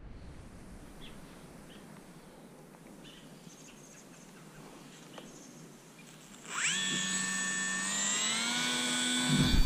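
The RC airplane's 2-cell brushless electric motor and propeller spool up about six and a half seconds in: a sudden whine that sweeps up fast, then holds steady and climbs a little higher near the end as the throttle opens. Before that there is only faint outdoor background, and a low noise comes in just before the end.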